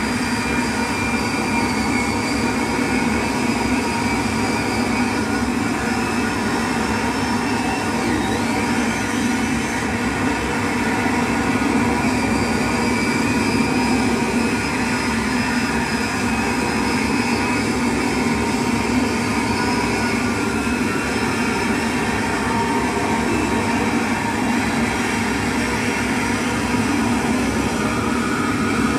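Live electronic noise drone from a table of effects pedals and a small mixer: a dense, steady wall of noise with several held tones layered through it. A brief high swooping glide comes about eight seconds in.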